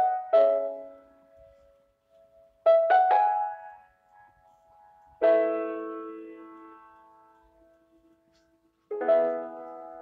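Slow, sparse background piano music: chords struck a few seconds apart and left to ring out and fade.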